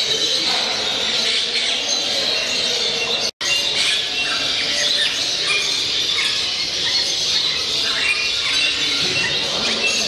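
A dense, steady chorus of many caged birds chirping and squawking at once, with shrill calls standing out. It cuts out for an instant about three seconds in.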